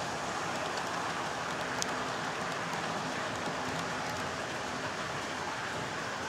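HO scale model freight train rolling past on its track: a steady rattle of small wheels on the rails, with a few faint clicks.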